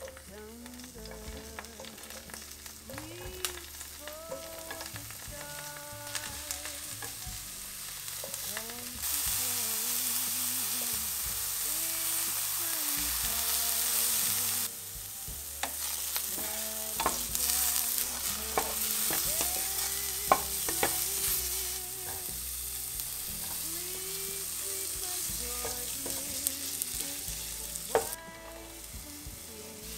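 Sliced mushrooms sizzling as they fry in a hot nonstick pan, stirred and tapped about with a wooden spatula. The sizzle is loudest through the middle and drops near the end as the heat is turned down.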